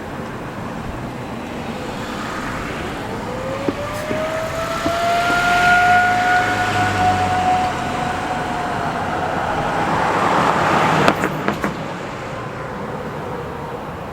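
Outdoor tornado warning siren winding up to a steady tone, holding it a few seconds, then fading away, a short run in a test that is called a fail. Road traffic swells past twice, louder than the siren, with a few sharp knocks near the end.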